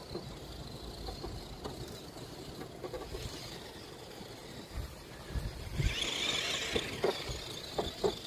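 Tamiya Konghead 6x6 RC monster truck driving over rough ground, with a louder rush of noise about six seconds in and a few short knocks near the end.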